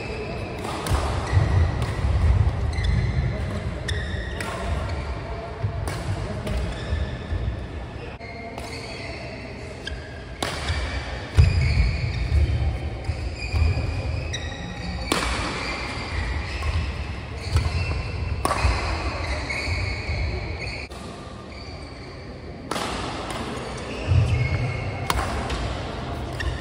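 Badminton rally: sharp racket strikes on the shuttlecock every second or two, short high squeaks of court shoes on the mat, and heavy footfalls.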